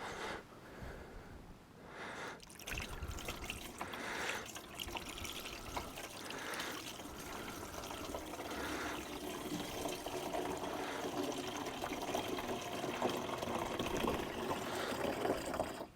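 Fluid being poured through a funnel into a fill tube on the Ram 1500, a steady trickle that starts about two seconds in and keeps going.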